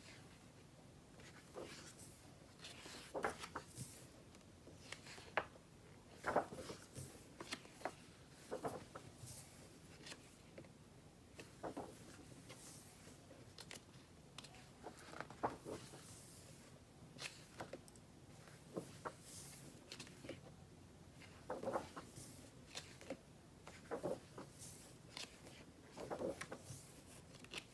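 Pages of a large, thick paper magazine being turned by hand, a faint rustle of paper every second or two as one page after another is lifted and laid over.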